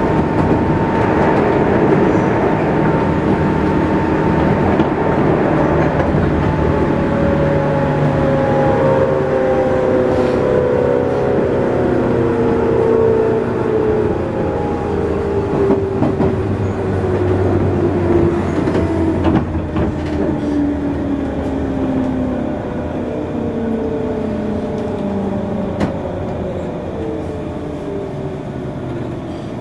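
Running sound inside a JR 201-series electric train's motor car: the traction motor and WN-drive gear whine falls steadily in pitch as the train slows for a station stop. Underneath is a rumble of wheels on rail, with a few rail-joint clacks.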